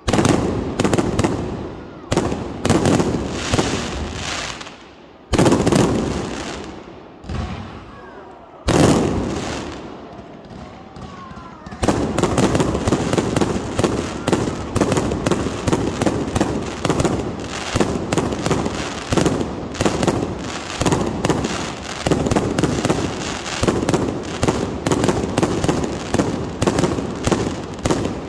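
Fireworks bursting overhead. For the first dozen seconds it is single loud bangs a second or two apart, each trailing off into crackle; then, about twelve seconds in, a dense, rapid barrage of bangs and crackling begins and carries on.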